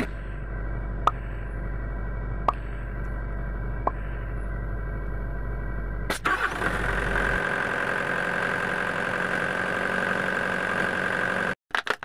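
Excavator diesel engine running steadily, with three short high pips in the first few seconds. About six seconds in, the sound jumps to louder, harsher running that stops abruptly near the end.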